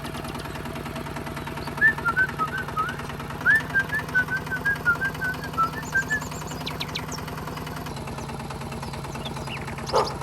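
Small motor running steadily with a fast, even rattle, with a string of short chirps in the middle.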